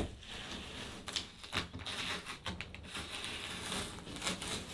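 Blue painter's tape being picked at and peeled off a freshly painted wall, crackling in quick, irregular ticks.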